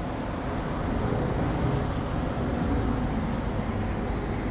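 Air-conditioning service equipment running a steady mechanical hum during the vacuum stage of a car A/C recharge.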